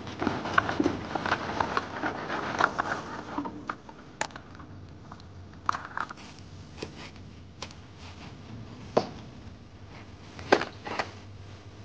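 Live crayfish pouring from a plastic bucket into a plastic basin, their shells and claws clattering in a dense rattle for about the first three and a half seconds. After that come scattered separate clicks and knocks.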